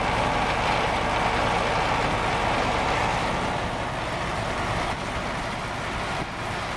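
Steady road and engine noise of a vehicle driving, heard from inside the cab.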